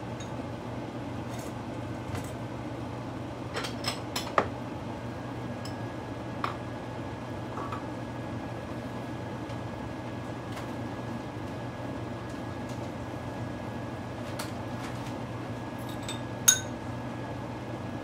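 Glass or crockery clinking a few times in a kitchen over a steady low hum: a cluster of sharp clinks about four seconds in, a couple of lighter ones after, and one louder clink near the end.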